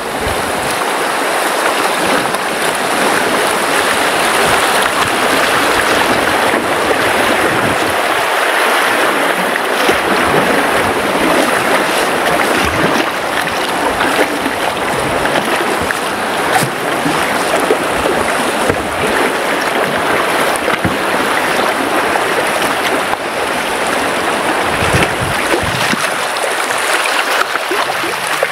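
Steady rushing of a shallow river rapid around an inflatable boat, with scattered low bumps underneath.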